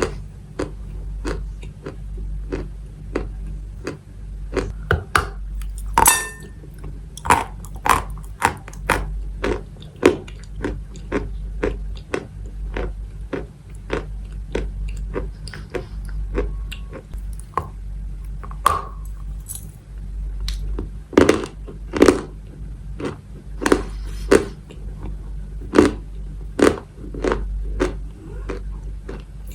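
Pieces of Maria edible chalk being bitten and chewed close to the microphone: a continual run of sharp, dry crunches several times a second, over a steady low hum.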